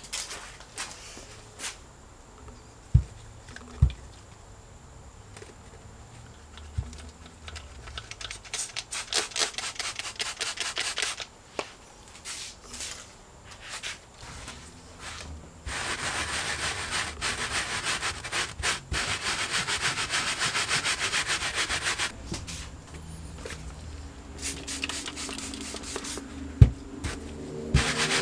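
Stiff-bristled carpet brush scrubbing a car's cargo-area carpet in rapid back-and-forth strokes. There are a few short spells of scrubbing about ten seconds in, a long steady stretch in the middle, and more strokes near the end. Two sharp knocks come a few seconds in and another near the end.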